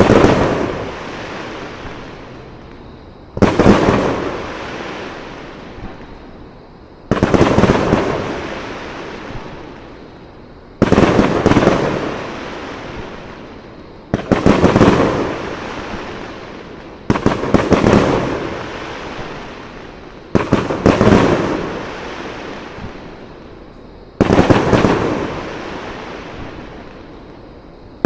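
Fireworks display shells bursting with loud booms, about one every three to four seconds, a few of them doubled. Each boom trails off in a long fading rumble.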